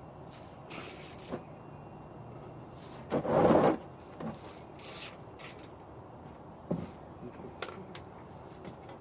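A socket wrench being worked on the oil drain plug of an Onan Microquiet 4000 generator: scattered rubbing and clicking of metal tools, with one louder half-second rasp about three seconds in.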